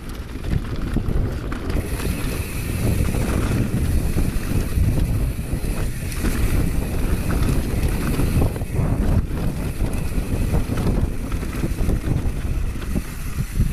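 Wind rushing over an action camera's microphone during a fast mountain-bike descent, mixed with the rumble of knobby tyres over dirt and rock and short rattles from the bike.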